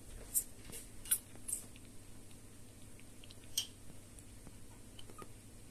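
Mother cat licking and grooming a kitten: faint, wet clicking licks, several in the first two seconds and one sharper one about three and a half seconds in.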